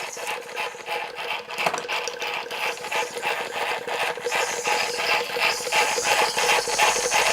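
Cyldon 13/5 model steam engine running steadily, its gearing making a rapid, even mechanical clatter, with a faint steady tone underneath.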